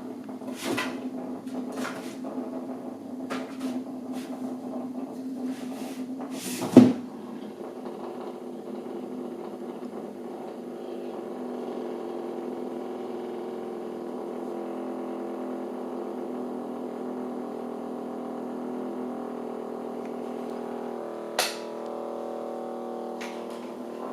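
A Hexbug Nano vibrating robot toy buzzing steadily inside a box, with quick ticking taps in the first few seconds. There are two sharp knocks, a loud one about seven seconds in and a smaller one near the end.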